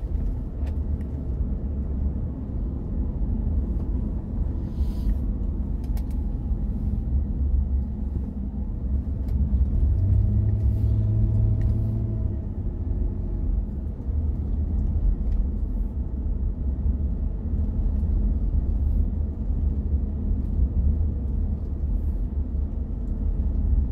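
Steady low rumble of road and engine noise inside a moving car's cabin, swelling briefly about ten seconds in.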